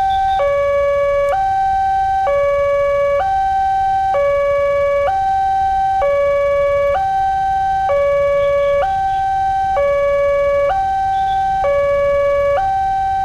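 Railway level-crossing warning siren: an electronic two-tone alarm alternating between a higher and a lower tone, each held about a second, steady and loud. It is sounding with the flashing red lights, warning that a train is approaching and the crossing is closing.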